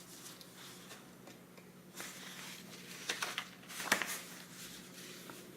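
Rustling and handling noises in short bursts, with a sharp click about four seconds in, over a steady low hum.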